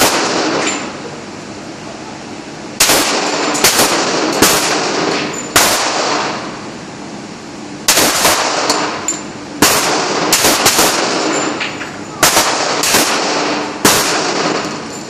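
Springfield 1911 pistol fired again and again, single sharp shots at irregular intervals of about half a second to two seconds, each followed by a ringing echo off the walls of the indoor range.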